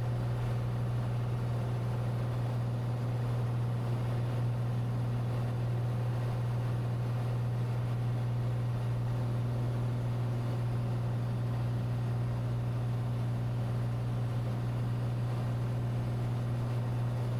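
Cessna 182T's six-cylinder Lycoming engine and propeller running in a steady, unchanging drone during the climb-out after takeoff.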